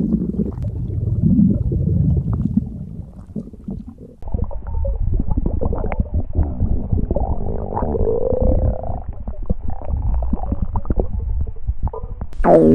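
Stomach growling and gurgling: a continuous low rumble broken by irregular crackly gurgles, with a drawn-out squeaky gurgle about eight seconds in and a loud growl falling in pitch right at the end.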